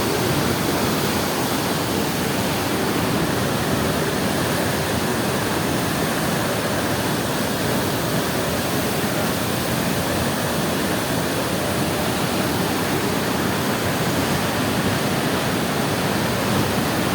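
Waterfall pouring and splashing in a steady, unbroken rush of white water.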